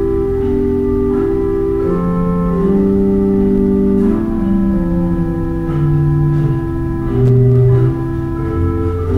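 Organ music: slow, sustained chords that move to a new chord every second or so.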